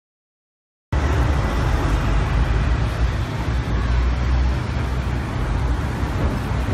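City street traffic: a steady mix of cars, taxis and buses with a deep engine rumble, cutting in abruptly out of silence about a second in.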